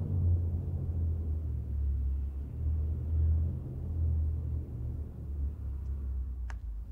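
Low, wavering rumble of an eerie ambient drone, with one sharp tick near the end.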